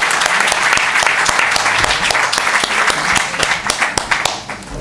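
Audience applauding, a dense patter of many hands that thins to scattered separate claps and dies down over the last second and a half.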